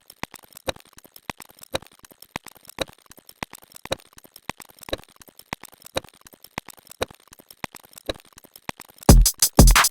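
Rapid, irregular light clicks. Near the end, a short electronic drum-machine beat sound effect: two heavy kick-drum hits about half a second apart.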